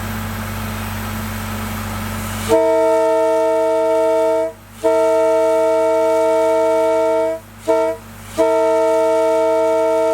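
Nathan K13B locomotive air horn blowing a multi-note chord in four blasts, long, long, short, long: the grade-crossing signal. A steady low hum runs until the horn starts about two and a half seconds in.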